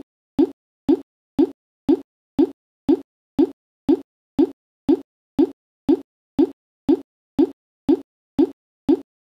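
A short, low plop repeating evenly about twice a second, each one identical, with silence between: a looped sound effect.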